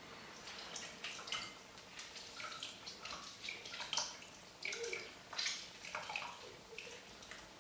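Halved lemons squeezed by hand over a saucepan of sugar syrup: wet squelching of the fruit, with juice dripping and splashing into the syrup in a string of short, irregular bursts.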